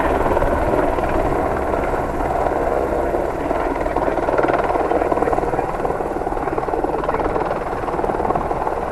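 Light helicopter flying low, its rotor making a fast, steady beating.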